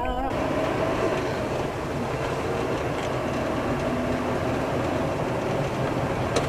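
Steady road and engine rumble heard from inside a moving car's cabin on a dashcam, with a faint hum running through it. A snatch of music cuts off right at the start, and there is a short click near the end.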